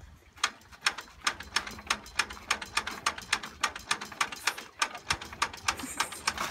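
Cold four-cylinder engine of a 1930s Fordson tractor being turned over with the hand crank: a quick run of sharp mechanical clicks, about three to four a second and speeding up, without the engine catching.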